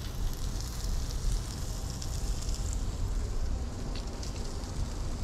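Butter sizzling in a nonstick frying pan where a sheepshead omelet and small pieces of sheepshead are frying: a steady sizzle with faint scattered crackles.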